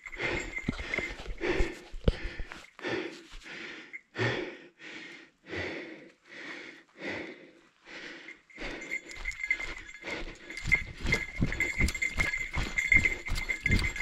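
A trail runner's hard, rhythmic breathing and footfalls on a leaf-covered forest path. From about nine seconds in, the footfalls come faster and thump more heavily as the pace picks up.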